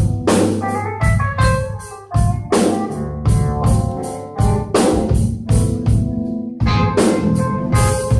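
A live band playing at a sound check: a drum kit striking hits under guitar and keyboard chords.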